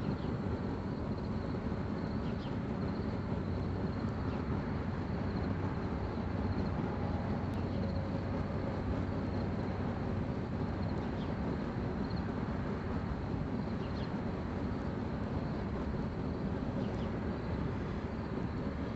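Mr. Volcano single-burner propane forge burner running with a steady rushing sound, firing the forge to cure its rigidized ceramic-wool lining and drive out moisture.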